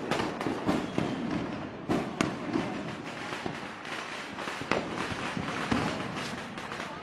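Fireworks going off: a dense run of crackling pops and bangs with a few louder, sharper cracks among them.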